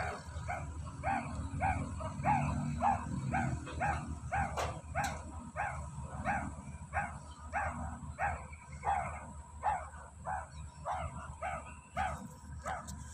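Meerkat calling over and over with short, sharp bark-like calls, about three a second, each dropping in pitch.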